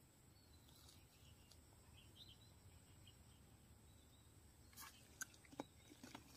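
Near silence: a quiet outdoor background with faint bird chirps, and a few soft clicks near the end.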